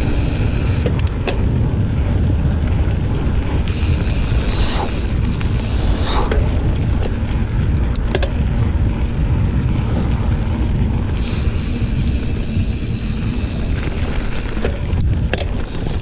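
Mountain bike rolling along a dirt trail, with heavy wind rumble on the microphone and scattered sharp rattles and knocks from the bike over bumps.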